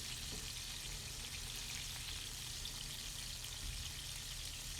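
Ground-beef hamburger patties frying in their own grease in a pan, a steady, faint sizzle with fine crackling.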